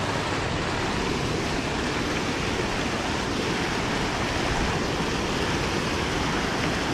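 Steady rushing of water pouring into a channel and churning white.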